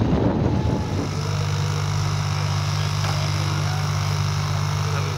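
Wind buffeting the microphone, then about a second in a giant-scale model aircraft's engine idling steadily on the ground.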